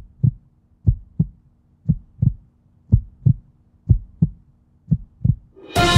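Heartbeat sound effect: low double thumps, lub-dub, about one pair a second, over a faint steady hum. Music comes in suddenly just before the end.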